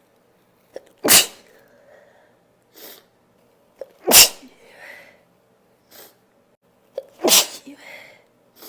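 A person sneezing out loud, unstifled, three times about three seconds apart. Each sneeze comes with a quick breath in just before it and a short breathy tail after it, with softer breaths between.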